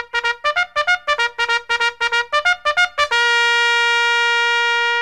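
Intro music: a quick run of short notes, about six a second, then one long held note for the last two seconds.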